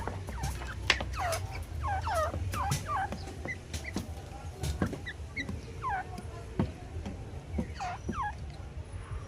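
Grey francolins calling: a run of short, downward-sliding calls, bunched in flurries, with scattered sharp clicks and a low steady rumble underneath.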